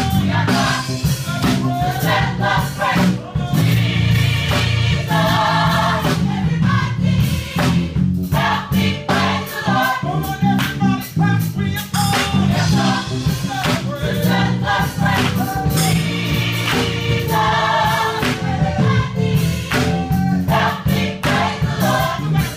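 Live gospel praise music: a choir of voices singing together over a band, with drums keeping the beat.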